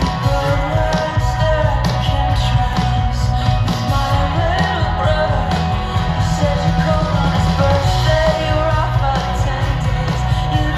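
Live band playing loud amplified music with a lead singer, heard from within the audience.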